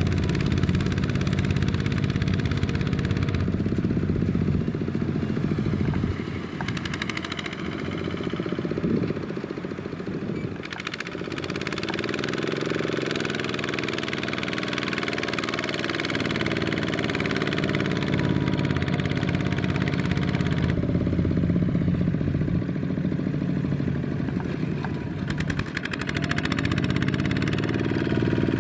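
Single-cylinder diesel engine of a Kubota two-wheel tractor running under heavy load, straining to pull through deep mud. Its pitch slides up and down several times as it is revved.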